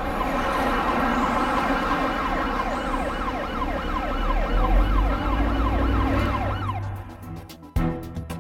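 A dense wash of city noise with an emergency-vehicle siren yelping, its pitch sweeping down about three times a second over a low rumble. The whole mix cuts off about seven seconds in and is followed by a sharp knock.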